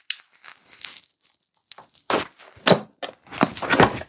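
Product packaging being opened and handled, rustling and crinkling in several short bursts, loudest in the second half.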